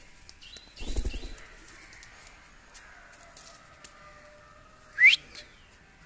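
Rose-ringed parakeet calling: a few faint short chirps and a brief rustle about a second in, then one loud, short, rising call near the end.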